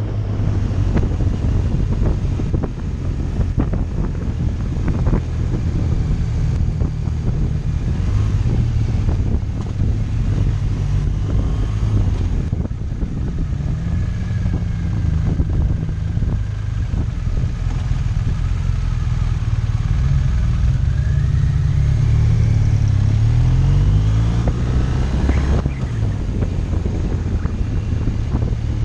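Motorcycle engine running while riding, heavy wind noise buffeting the microphone. The engine note rises and falls with throttle, climbing for several seconds late on and then dropping suddenly.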